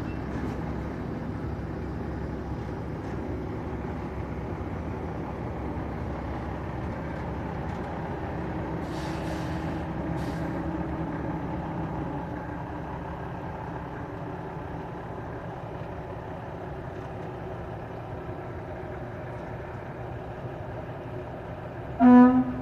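A semi-truck's diesel engine running steadily at low speed while the tractor-trailer reverses, with two brief hisses of air about nine and eleven seconds in. A short, loud horn toot near the end.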